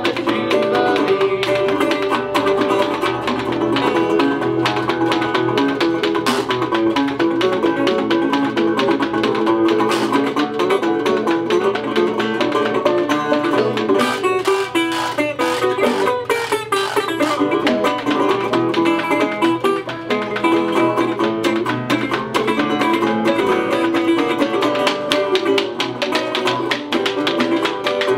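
Instrumental string-band music: banjo and resonator guitar picking a lively tune over a steady clicking washboard rhythm, the washboard scraped and tapped along with its attached metal cups.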